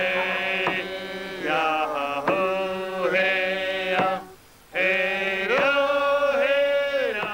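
Tlingit ceremonial chant: a voice sings long held notes that slide up and down between pitches, with a short break for breath about four and a half seconds in.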